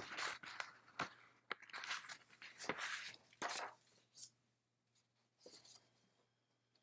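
Faint rustling and a few small clicks from a person sitting close to the microphone, dying away to near quiet after about four seconds.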